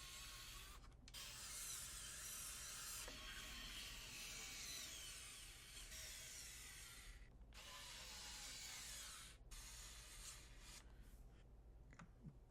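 Cordless electric screwdriver (Fanttik NEX E1 Max) running with a T10 bit, driving the casing screws of an Xbox One X, in several runs with brief pauses between them; the longest run lasts about six seconds.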